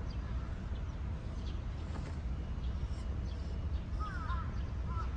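Crows cawing in short repeated calls, mostly in pairs, starting about four seconds in, over a steady low outdoor rumble.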